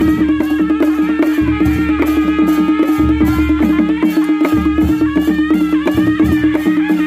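Nepali panche baja folk tune: a sanai (shehnai) plays a wavering melody over a steady drone. A dholaki barrel drum and cymbal strokes keep a quick beat of about four strokes a second.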